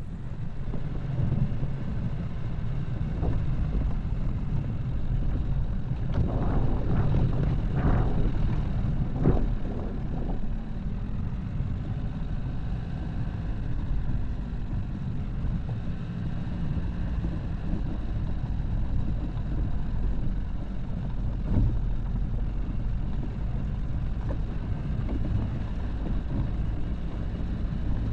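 Dacia Duster driving off-road: the engine runs under a steady low rumble. Several sharp knocks come from the car jolting over rough ground, a cluster of them between about six and ten seconds in and another about twenty-one seconds in.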